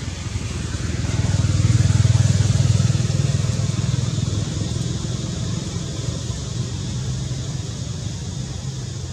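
Low, steady rumble of a motor vehicle engine running nearby. It swells about a second and a half in and eases off again after about four seconds.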